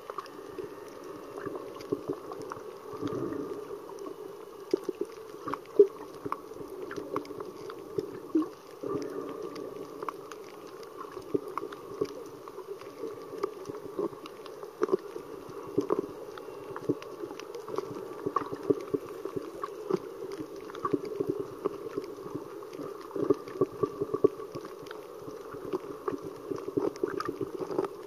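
Underwater ambience heard through the camera: a steady muffled water noise with a dense, irregular crackle of sharp clicks throughout.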